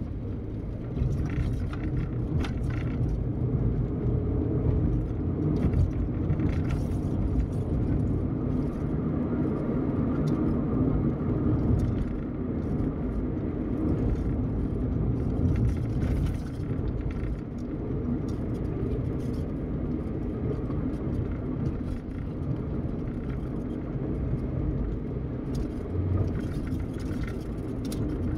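Car driving on a paved road, heard from inside the cabin: a steady low rumble of engine and tyre road noise.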